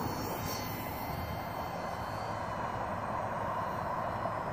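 Small electric RC airplane's motor and propeller buzzing as it flies overhead, over a steady wash of background noise.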